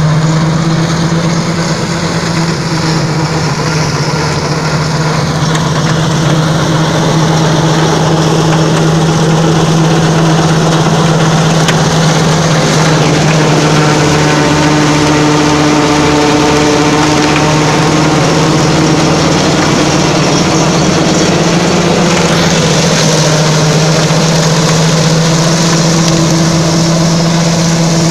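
John Deere 720 tractor's diesel engine running steadily under load, pulling a Happy Seeder through straw stubble, with a constant rushing noise from the seeder working the straw. The engine note holds at one pitch throughout.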